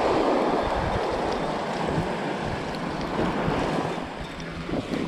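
Small surf washing up the sand, a steady wash loudest in the first second, with wind buffeting the microphone.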